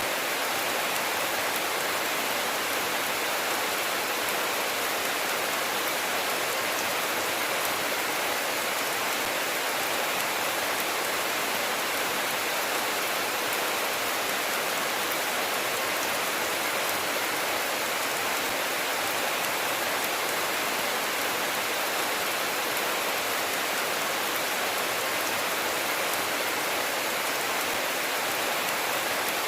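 Steady rainfall: an even, unbroken hiss of rain with faint scattered drop ticks.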